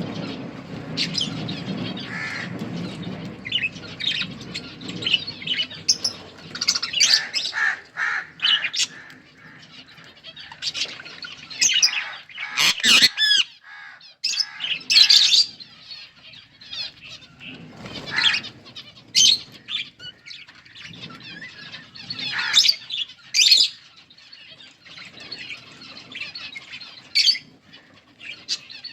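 Budgerigars chirping and chattering in short, scattered calls, with occasional louder squawks and a sharp, loud burst of noise a little before the middle.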